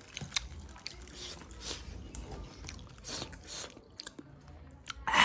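A person chewing and biting into tandoori chicken, with irregular wet clicks and crunches, and a louder short burst of noise near the end.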